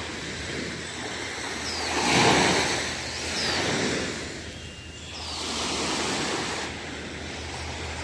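Small waves washing up onto a sandy beach, the surf swelling and fading in slow surges, loudest about two seconds in.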